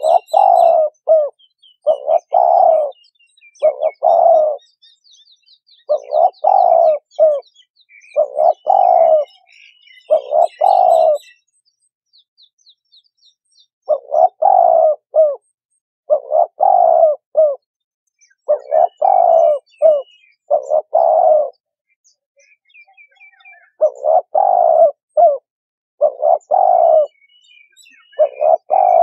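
Spotted dove (cu gáy) cooing: its multi-note coo phrase comes again every second or two, with a couple of short pauses. Small birds chirp faintly and high above it.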